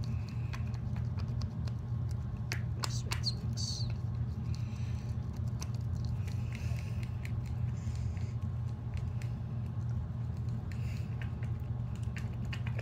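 Glue slime being stirred with a spoon in a small cup: soft sticky squelches and scattered light clicks of the spoon, over a steady low hum.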